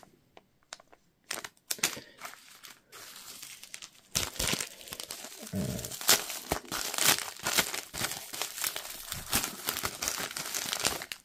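Plastic packaging crinkling and rustling with some tearing as a fishing lure is unwrapped: a few scattered crackles at first, then steady crinkling from about four seconds in.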